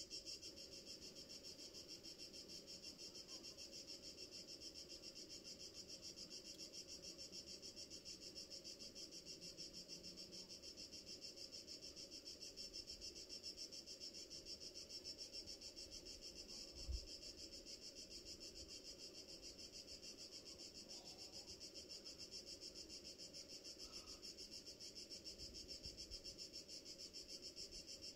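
Faint, steady chirring of insects such as crickets stridulating, high-pitched and pulsing rapidly and evenly. A single low thump about two-thirds of the way through.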